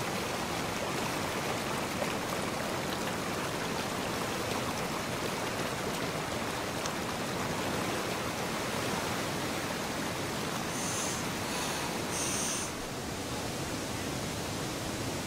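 River water rushing over rocks: a steady, even noise. A few short, high chirps stand out about three-quarters of the way through.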